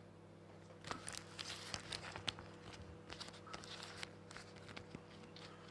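Faint scattered rustles and light taps, likely from handling, over a steady low hum.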